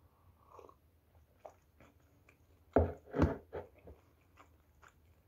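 A person eating soft sweet bread and drinking from a mug: faint chewing and mouth clicks, with two much louder short bumps a little under three seconds in.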